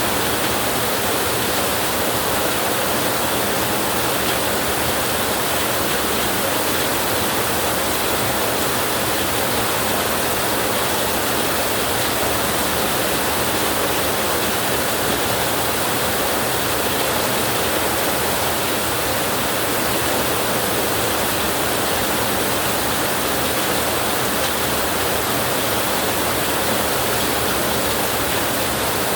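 Heavy rain falling steadily, an even, unchanging hiss.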